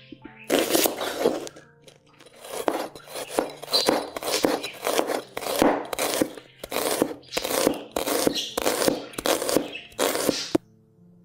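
Chef's knife slicing a shallot into rings on a cutting board: a crisp cut and a tap of the blade on the board with each stroke, about two or three strokes a second. There is a short pause near two seconds in, and the cutting stops suddenly near the end.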